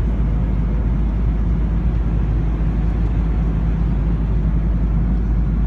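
Airbus A330-200 airliner cabin noise in steady cruise flight: a constant, loud deep rumble of engines and airflow with a low hum, heard from inside the passenger cabin.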